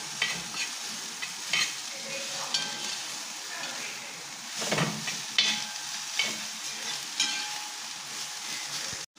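Sliced onions sizzling in hot oil in a metal pan while a metal spoon stirs them, with repeated scrapes of the spoon against the pan: onions being sautéed until soft.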